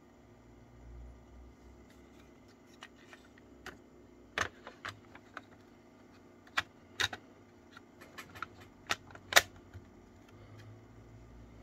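Plastic clicks and taps of a compact cassette being handled and pushed down into the cassette well of a Unitra ZRK MK 121 portable cassette recorder: a scattered run of short, sharp clicks from about four seconds in, the loudest near the end, over a faint steady hum.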